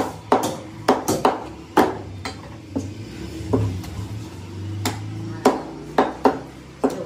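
Butcher's cleaver chopping mutton on a wooden log chopping block: a string of sharp chops, about one or two a second, with a pause near the middle.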